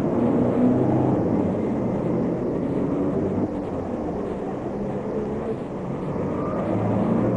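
Steady low engine-like drone, with a few low humming tones over a rumble that dips slightly midway and swells again near the end.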